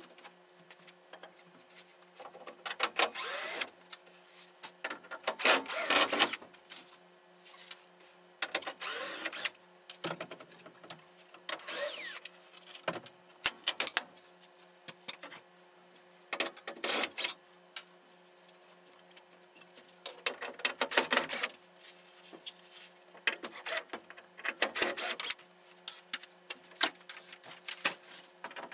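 Model railroad layout being dismantled by hand: bursts of scraping and tearing, each about a second long and a few seconds apart, some with short squeaks.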